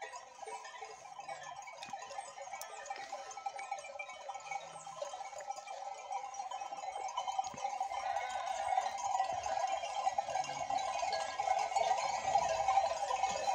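Many neck bells on a flock of sheep clinking and ringing together, with some bleating. The sound grows louder over the second half.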